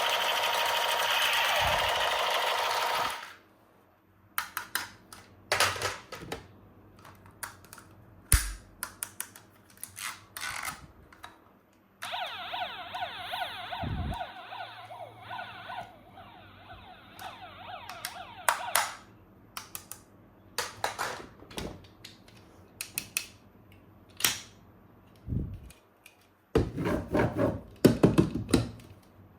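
Plastic toy guns being handled, with scattered clicks and snaps. An electronic siren-like toy sound plays loudly and stops about three seconds in, and another electronic sound effect plays for about four seconds midway. A quick run of clicking and clattering comes near the end.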